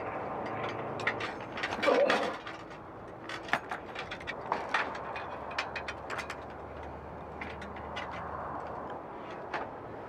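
Wrenches clicking and clinking on a bicycle's metal frame and wheel hub, with scattered sharp ticks and a louder, longer clatter about two seconds in.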